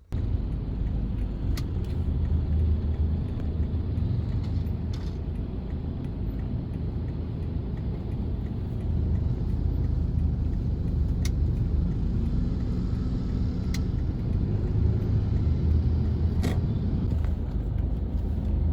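Steady low rumble of a moving vehicle, with a few sharp clicks now and then.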